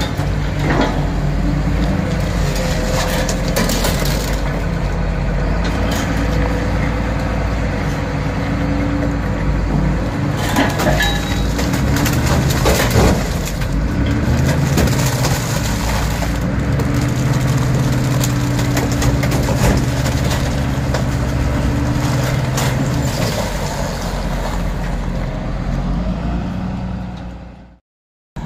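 A heavy machine's engine runs steadily under load while a chain drags a thick bundle of cables and wiring out of a bus's underfloor bay, with repeated cracks and snaps as wires and brackets tear loose and scrape. The sound cuts off abruptly near the end.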